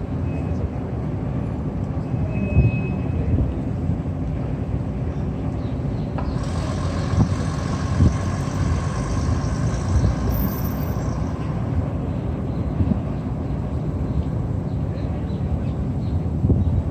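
Steady city street traffic rumble with a few soft knocks. A higher-pitched hum from a vehicle cuts in about six seconds in and fades out by about eleven seconds.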